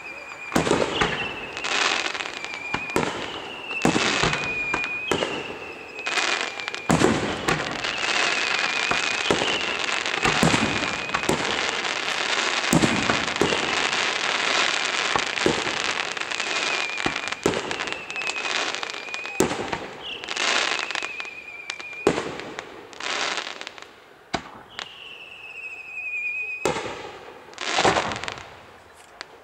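Professional fireworks display: sharp bangs of bursting shells and a run of whistles, one every second or two, each falling in pitch. A dense crackling stretch comes in the middle, and a few louder bursts come near the end.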